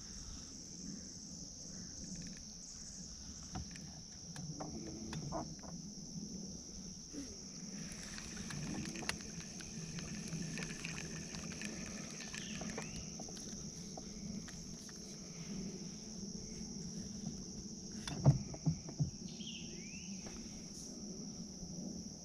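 A steady high-pitched insect drone, the kind swamp cicadas or katydids make, runs under a low rumble. There are scattered small clicks and one sharp knock about 18 seconds in, followed by a couple of lighter knocks.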